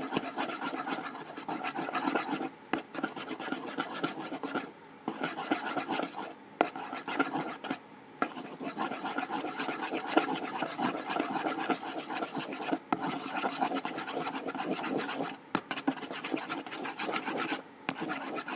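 Fast, continuous scraping and rubbing of a stirrer against a container as a slime mixture of soap and toothpaste is stirred, stopping briefly several times.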